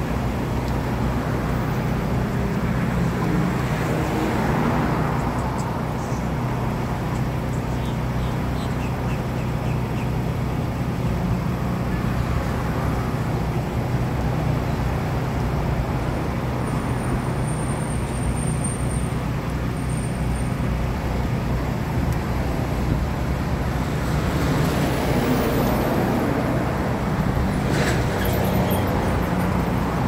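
Portable generator engine running at a steady speed, a constant low hum.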